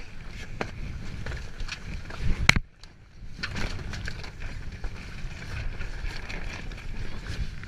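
Wind buffeting the camera microphone over water sloshing around a sailing dinghy, with scattered small knocks. There is a louder rush about two and a half seconds in, then a brief drop to near quiet before the wind and water noise return.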